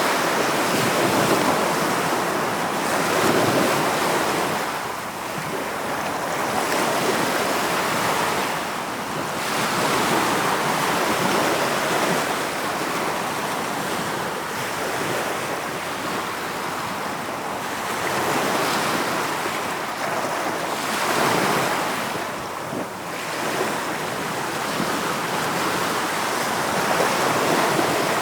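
Ocean surf: waves breaking and washing on the shore, the rush swelling and easing every few seconds.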